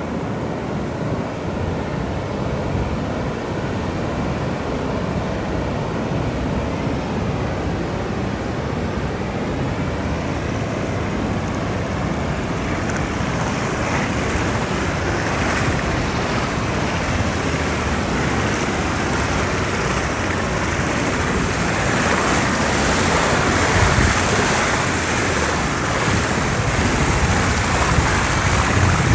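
Ocean waves surging and breaking on the shore: a continuous rushing wash with a low rumble that swells louder and brighter through the second half, with heavier breaks near the end.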